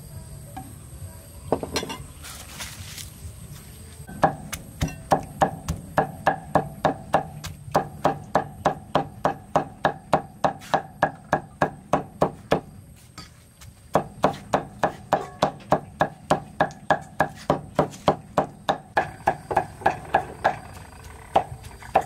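Cleaver chopping raw meat on a thick wooden chopping block, with steady blows about three to four a second starting about four seconds in, a short pause around the middle, then more chopping.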